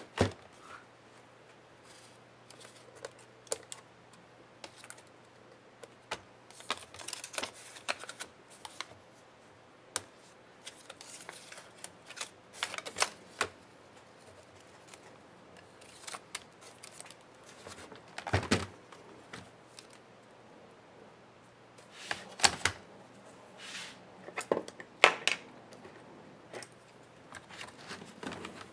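Irregular clicks, taps and rustling from the plastic case and metal keyboard plate of an HP Stream 13 laptop being handled and separated by hand during disassembly.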